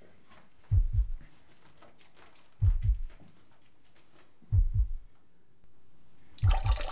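Slow heartbeat sound effect: four deep double thumps, each a lub-dub pair, about two seconds apart. A loud hiss starts just before the end.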